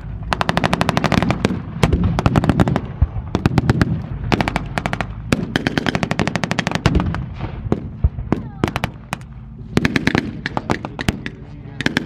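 Machine guns firing blanks in rapid, overlapping bursts with short pauses between, over the low running of tank engines.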